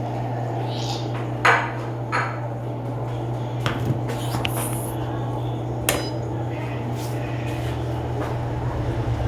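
Electrolux 12 kg washing machine running with a steady low hum, broken by several sharp metallic knocks, the loudest about one and a half seconds in.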